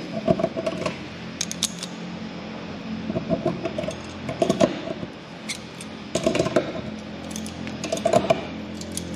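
Hand blind-rivet (pop-rivet) gun being squeezed repeatedly to set rivets in a gusset plate. There are short clusters of squeaky strokes every second or two, with sharp clicks.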